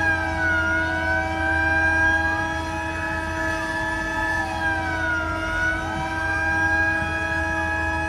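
Fire truck sirens wailing, their pitch slowly sweeping down and back up about every five seconds over several steady held tones, with a low engine rumble underneath.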